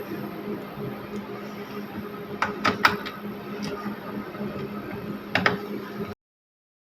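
Several sharp plastic clicks and taps from the computer's parts being handled during reassembly: three close together a little after two seconds in and a pair near the end, over a steady low hum. The sound then cuts off abruptly to complete silence.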